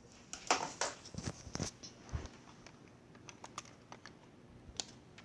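Scattered light clicks and taps from objects being handled, several close together in the first two seconds and a few sparser ones after.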